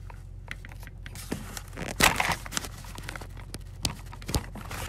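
Handling noise from a smartphone being moved about by hand: rustling, with scattered clicks and knocks. The loudest burst of rustling comes about two seconds in, with sharp knocks near the end.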